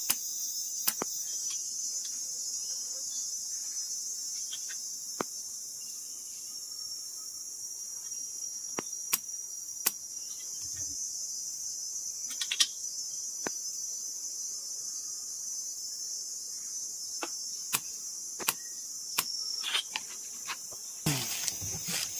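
Insects chirring steadily at a high pitch, with scattered sharp clicks and knocks over it. A louder rushing noise begins about a second before the end.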